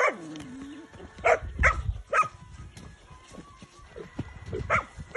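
Small dog barking at the lunging horse: a handful of short, sharp barks at uneven intervals. A low thud comes about two seconds in.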